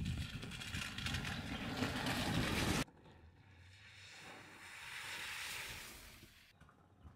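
A vehicle driving with a loud rushing noise that cuts off suddenly about three seconds in, followed by a much quieter rush that swells and fades.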